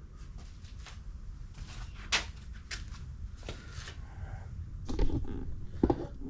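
Scattered light knocks, clicks and rattles of tools and gear being picked up and set down, the loudest a little before the end, over a steady low hum.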